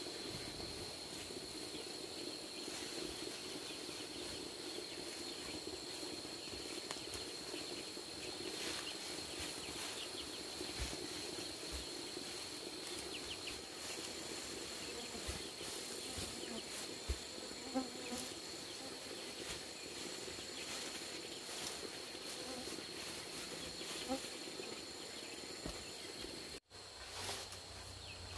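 Insects droning steadily: an even high-pitched tone with a lower buzz beneath it. There are a few soft knocks, and the sound breaks off for a moment near the end.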